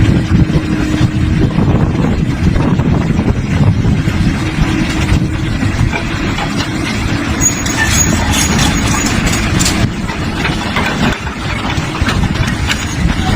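Heavy diesel engine of an excavator or bulldozer running steadily, with a few knocks in the second half.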